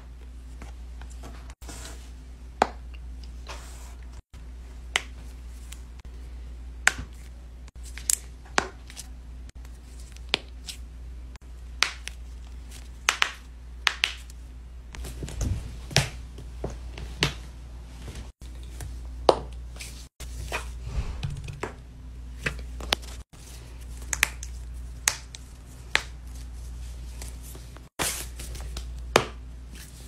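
A person cracking their own joints: a long irregular string of sharp pops and clicks, sometimes two or three in a second, over a steady low hum.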